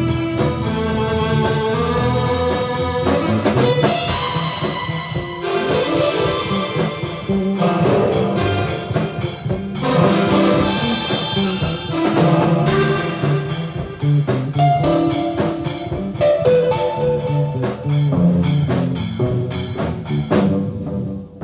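Improvised rock played live by a band: sustained electric guitar lines over a busy drum kit.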